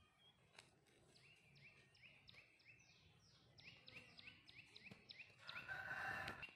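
Faint outdoor ambience with a bird calling in short, high, downward-sliding notes, about three a second. A brief louder sound comes near the end.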